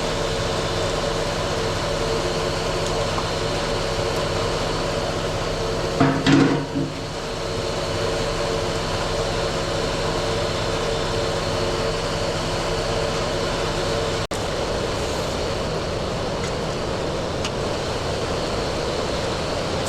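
The engine of a hydraulic excavator-type machine running steadily while its rebuilt thumb cylinder is tried out, with a short louder burst about six seconds in.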